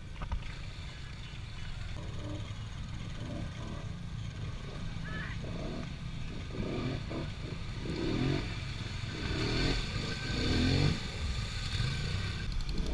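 Off-road vehicle engine running and revving up and down repeatedly, getting louder in the second half.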